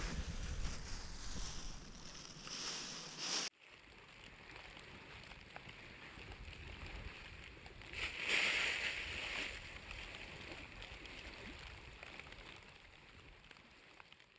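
Rustling camera handling, then after an abrupt cut a wood campfire crackling and hissing, with a louder hiss about eight seconds in. It fades out at the end.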